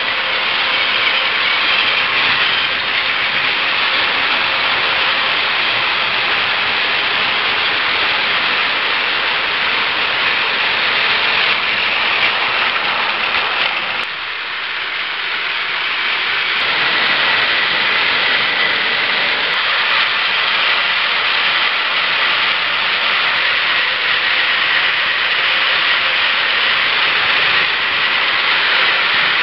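Plarail battery-powered toy bullet trains running on plastic track: a steady whir from their small electric motors and plastic wheels. The noise dips briefly about halfway, and a thin high whine joins in during the second half.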